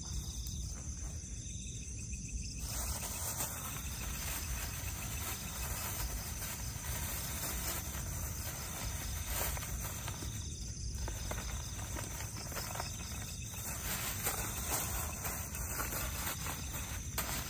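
Night-time insects buzzing in a steady high-pitched drone, with a few soft rustles.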